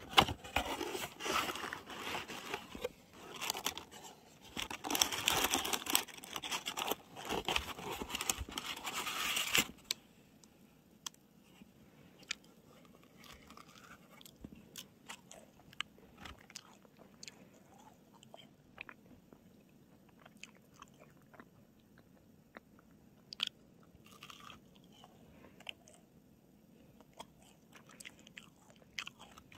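Plastic packaging of a macaron box crinkling loudly as it is handled and opened, stopping suddenly about ten seconds in. After that, quiet, scattered small crunches and clicks of a macaron being bitten and chewed.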